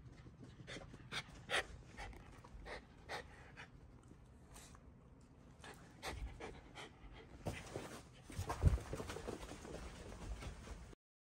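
Shiba Inu panting in quick, even breaths, about two to three a second. In the second half come rustling and low thumps as the dog is petted and moves about on the carpet, with one louder thump.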